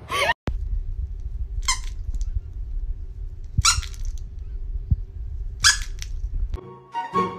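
Rubber squeaky dog toy squeezed three times, about two seconds apart, each a short high squeal. Music starts near the end.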